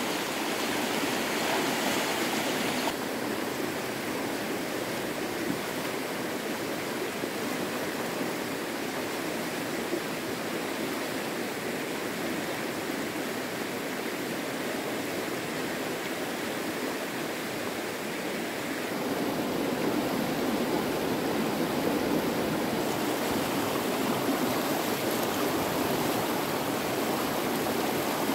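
Rushing water of a flowing stream: a steady hiss that shifts slightly in tone a few seconds in and again after about twenty seconds.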